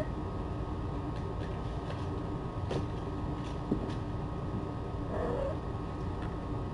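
Steady low room hum with a few faint clicks, and a short, faint cat mew about five seconds in.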